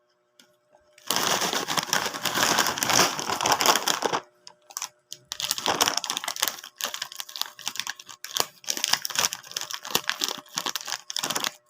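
Dense, loud crackling and crunching from a chips snack. It starts about a second in, stops briefly after about four seconds, then comes back in irregular bursts with short gaps.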